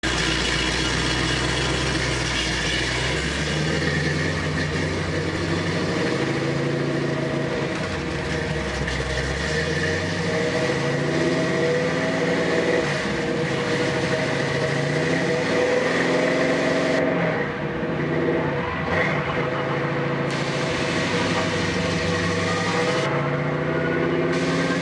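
1955 Chevrolet Bel Air's engine and drive line running with the car up on jack stands, the drive shaft spinning freely at road speed during an initial drive-line test. The engine note climbs in pitch and drops back several times.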